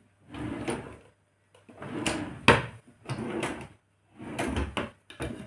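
Kitchen things being handled: four short bursts of sliding and rattling, with a sharp knock about halfway through.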